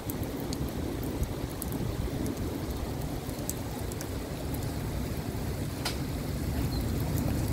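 Heavy rain falling steadily, with scattered sharp drop ticks close by over a low rumble.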